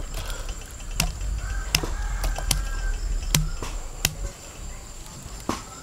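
Bamboo cooking tube knocked against a stainless steel tray to shake out the cooked chicken and leaves: about six sharp knocks, roughly one every three-quarters of a second, with a longer gap before the last.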